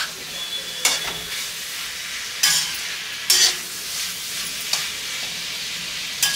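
Spiny gourd pieces sizzling in oil in a metal kadhai while a flat metal spatula stirs them, scraping the pan four or five times at uneven intervals over a steady sizzle: stir-frying on a high flame.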